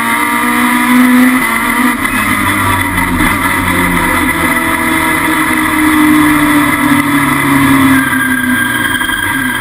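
Peugeot 306 Maxi Kit-Car's naturally aspirated 2.0-litre four-cylinder racing engine running hard at high revs, heard from inside the cabin, its pitch shifting up and down.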